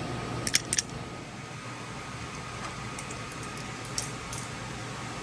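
A few short, sharp clicks and clinks of hard objects being handled, a quick cluster about half a second in and fainter ticks later, over a steady fan-like hum.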